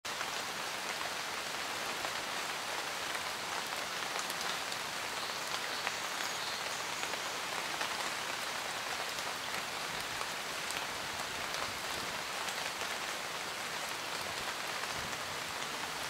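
Steady rain falling, an even hiss with many scattered single drops ticking through it.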